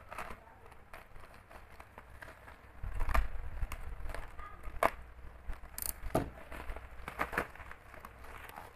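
Utility knife slicing through black plastic parcel wrapping, with the plastic crackling, crinkling and tearing as it is pulled open in short irregular bursts. A low thump of the parcel being handled on the desk about three seconds in.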